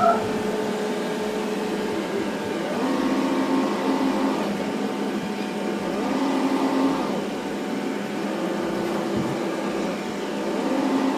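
Xiaomi Roborock Sweep One robot vacuum cleaning the floor: its motors run with a steady whir whose tone shifts a little every few seconds as it moves.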